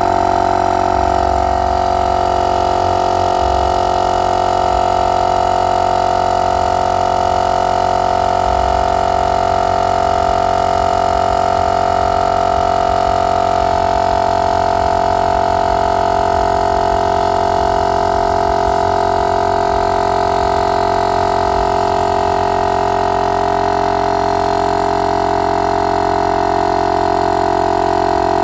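Motomaster 12 V direct-drive air compressor running steadily with a loud, even hum while inflating a car tire, its tone shifting slightly about halfway through.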